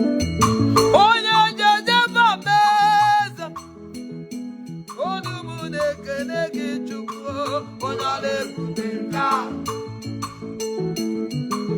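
Gospel worship music: a singer's voice carries two long, sliding phrases over a steady instrumental backing with a beat.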